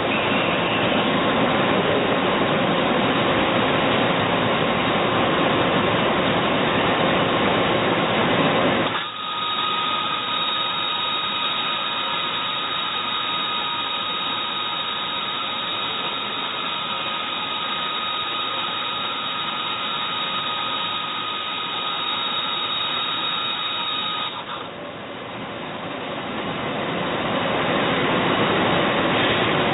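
Doosan Puma ST20G CNC lathe running: a loud, even hiss-like machine noise. About nine seconds in it drops suddenly to a quieter, steady high whine made of several pitches. The hiss swells back in over a few seconds near the end.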